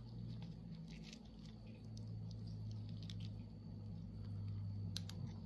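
Faint, irregular light ticks and taps of a diamond painting drill pen and resin drills against the glued canvas, over a steady low hum.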